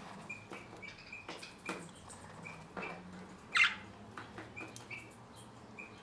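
Caged budgerigars chirping: a dozen or so short, high chirps, with one louder call about three and a half seconds in, among light clicks and taps.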